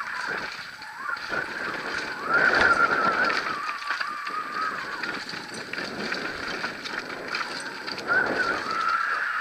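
A downhill mountain bike ridden fast on a loose dirt and gravel trail. Its rear freehub gives a high, wavering buzz while coasting, and this gets louder about two seconds in and again near the end. Under it are the rattle and crunch of the tyres and frame over stones.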